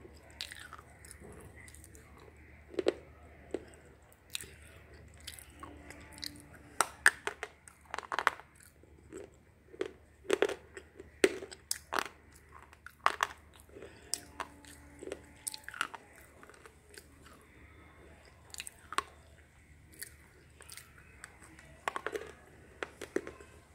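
A person chewing pieces of slate pencil close to the microphone: irregular sharp crunches as the slate breaks between the teeth, with quieter grinding between them.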